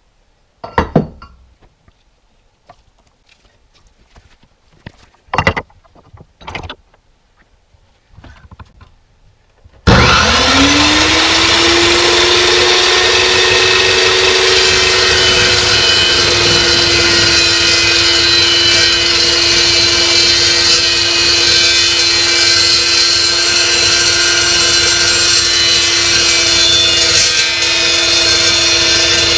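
A few short knocks and clicks as the steel tube is set in the saw, then about ten seconds in the Evolution EvoSaw380 metal-cutting chop saw starts with a rising whine that settles into a steady loud run. Its carbide-tipped blade is brought down into 1.5-inch, .095-wall electric-resistance-welded steel tube.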